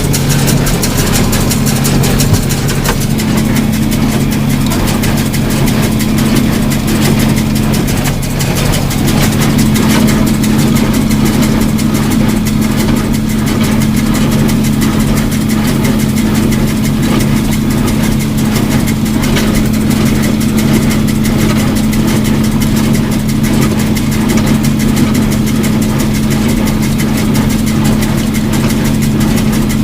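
John Deere 4230 tractor's six-cylinder diesel engine running steadily at high throttle, powering a Case IH 8545 small square baler at work, its mechanism ticking rapidly over the engine's steady hum.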